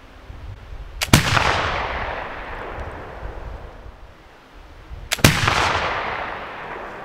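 Two shots from a flintlock Baker rifle loaded with black powder, about four seconds apart. Each report comes a split second after a smaller crack of the lock and priming pan, and rings out for about two seconds.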